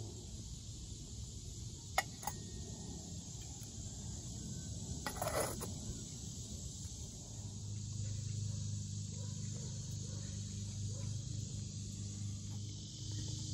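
Metal mess-tin lid clinking and rattling on a lit wood-burning mini rocket stove: a sharp click about two seconds in and a brief rattle around five seconds in as the lid is handled. A steady insect buzz runs underneath, and a low hum comes in about halfway through.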